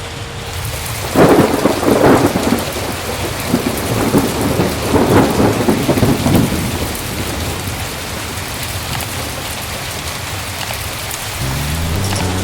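Heavy rain falling steadily, with a roll of thunder rumbling from about a second in and dying away after about six seconds.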